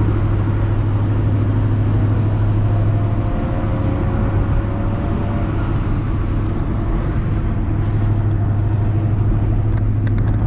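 Car engine and road noise heard from inside the cabin while driving, a steady low drone. There are a few light clicks near the end.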